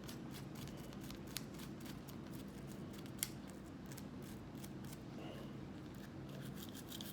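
Gun-cleaning sounds: quick, irregular scratchy strokes and small clicks as the pistol's parts are scrubbed and handled, with one sharper click about three seconds in.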